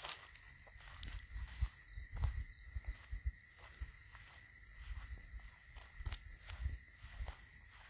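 Crickets chirring steadily at night in two steady high pitches, with irregular low thumps from people walking on grass.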